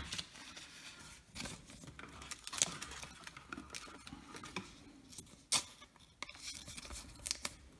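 Trading cards being handled and set down: scattered light clicks and short rustles, the sharpest a few seconds apart.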